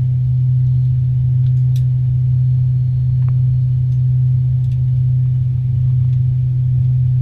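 Steady low hum inside the cabin of an Avro RJ85 airliner: one strong unchanging tone over a rumble, with a few faint ticks.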